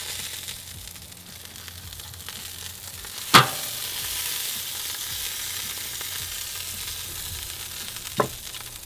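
Melted beef bone marrow sizzling on a tomahawk steak on a hot grill grate: a steady high hiss. A sharp tap about three seconds in, and a smaller one near the end.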